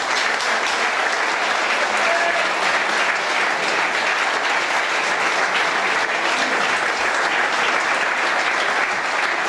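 Audience applauding steadily, a dense clapping from a roomful of people.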